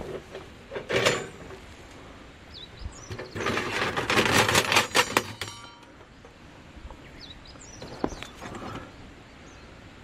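Captain Stag Shell Fire Pit, a stainless steel folding fire bowl, being knocked and shaken to empty its ash. There is a single metal clank about a second in, then a couple of seconds of rattling metal clatter, and a lone click later on. Birds chirp faintly in the background.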